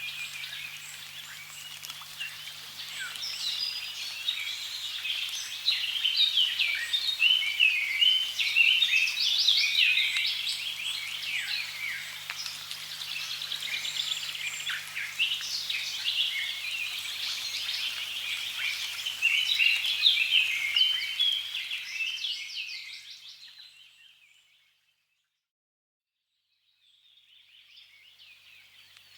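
Dense chorus of many birds chirping rapidly over a faint wash of running water. About three-quarters of the way through it fades out to a couple of seconds of silence, then fades back in.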